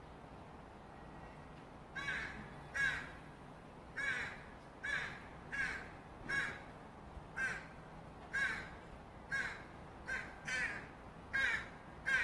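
Fledgling Northwestern crow making repeated begging calls: short, harsh caws that start about two seconds in and come roughly one every three-quarters of a second.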